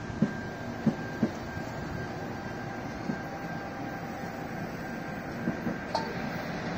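Amtrak Superliner bilevel passenger cars rolling slowly past on steel wheels: a steady rumble with a series of sharp knocks as wheels cross rail joints, the loudest three in the first second and a half. A faint steady high whine runs through the first half.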